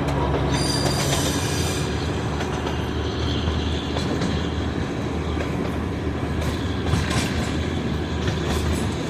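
Darjeeling Himalayan Railway narrow-gauge toy train running along the track: a steady rumble of wheels and carriages, with a high wheel squeal near the start.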